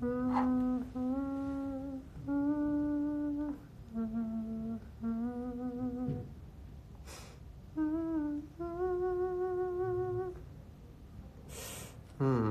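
A man humming a slow melody with his lips closed: a string of long held notes with short breaks between phrases, sketching out a ballad tune. Two short hissing sounds fall between phrases, one about seven seconds in and one near the end.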